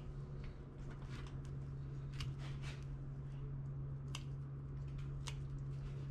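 Dog nail clippers cutting a puppy's nails: several sharp clicks, roughly one a second, over a steady low hum.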